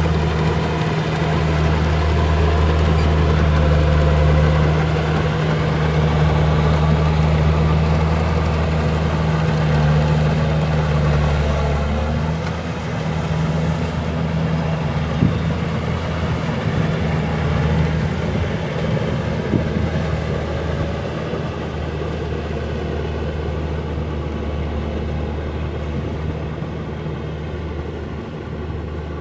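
Kubota rice combine harvester's engine running steadily with a low, even hum, easing slightly in loudness about twelve seconds in.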